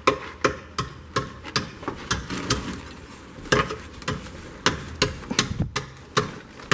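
A hammer striking a ceramic hollow block in an even run of sharp knocks, about three a second, chipping the block to fit around the rebar starter bars.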